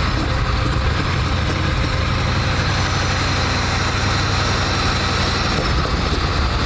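Car engine idling steadily just after a cold start, an idle the owners describe as bouncing a bit, with what they take for an occasional misfire.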